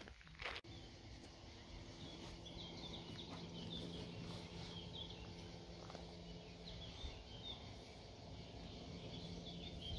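Faint outdoor ambience: small birds chirping in short scattered calls over a low steady hum.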